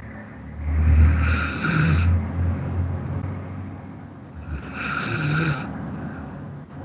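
A man snoring in his sleep, heard over an online voice call through his microphone: a deep snore from about half a second in lasting a couple of seconds, then another breath-snore around four and a half seconds in, in a slow regular rhythm.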